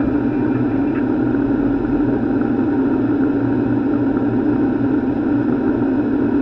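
Steady flight-deck noise of a Boeing 737 in flight: a constant, even rushing hum of airflow and engines that does not change.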